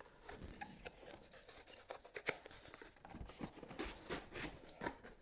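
Quiet unpacking noises: scattered small clicks, taps and rustles as accessory boxes are handled in a foam-lined cardboard shipping box.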